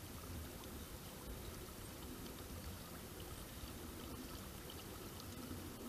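Water lapping and trickling around a kayak hull on choppy lake water, a steady wash with small splashes.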